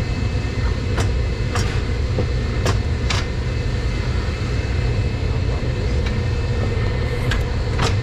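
Steady low rumble of boiler-room machinery, with several sharp metal knocks as a heavy cast-iron centrifugal pump is worked into place against the pipe flanges. The knocks come four in the first three seconds and twice more near the end.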